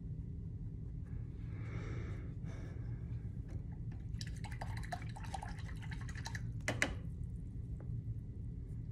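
Paintbrush being swished and tapped in a water cup: a soft sloshing, then a run of light clinks and one sharper tap, over a steady low hum.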